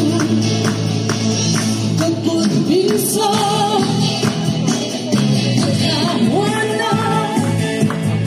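Group singing a gospel song with hand-clapping and a steady percussive beat of about two strokes a second.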